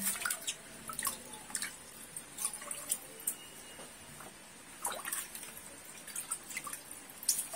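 Water dripping and lightly splashing in a plastic bucket with a small dog sitting in it: scattered, irregular plinks of single drops, a few falling briefly in pitch.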